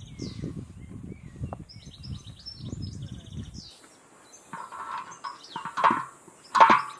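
Straw hand broom brushing across a domed metal bread griddle, scraping strokes with two loud sweeps near the end. Small birds chirp throughout.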